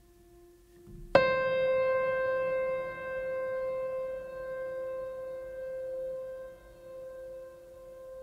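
Calm meditative background music: a single bell-like note is struck about a second in and rings on with a long, slowly fading decay over a quieter held lower tone.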